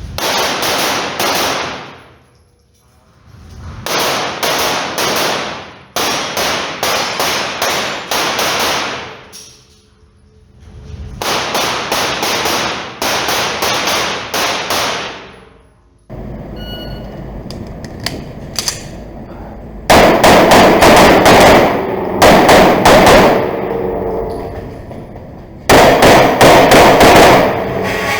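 Rapid strings of pistol shots from a compensated STI Trubor Open pistol, several shots a second, in bursts of a few seconds with short pauses between them as the course of fire goes on.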